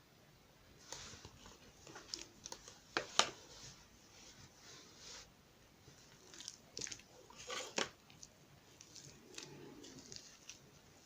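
Two-layer slime being squished and pressed by hand: irregular soft squelches and sticky clicking pops, the loudest snaps about three seconds in and again near eight seconds.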